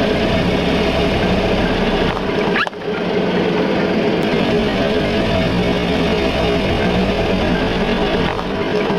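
Loud background music with guitar, broken briefly about two and a half seconds in.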